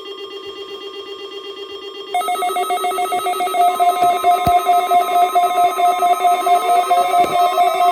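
NOAA Weather Radio test alarm sounding: a rapidly pulsing, ringing alert tone. About two seconds in, a louder, higher-pitched layer joins it. Two sharp clicks and a tone sliding upward are heard near the end.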